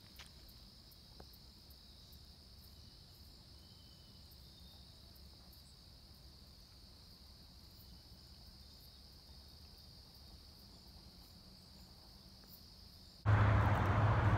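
Faint, steady high-pitched chorus of crickets. About thirteen seconds in it cuts off abruptly to much louder outdoor noise with a low hum.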